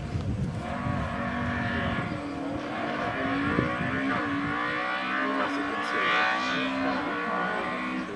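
Race car engine accelerating hard up the hill-climb course, its pitch climbing and then stepping down again as it shifts up through the gears.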